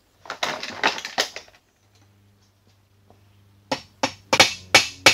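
Metal parts clattering on a metal workbench for about a second. After a pause, a run of sharp mallet taps, about three a second, on a steel lathe compound part, each with a brief metallic ring.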